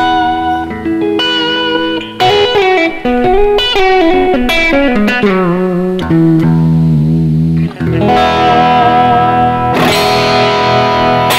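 PRS SE electric guitar with a roasted maple neck played on its middle pickup setting: held notes and quick runs of single notes, a note wavering in pitch about two-thirds of the way through, then a ringing chord struck and struck again near the end.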